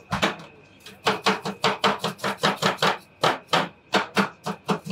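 Metal spatula chopping ice cream mix on the frozen steel cold plate of a rolled ice cream counter: one sharp hit, then from about a second in a fast, even run of taps, about five a second.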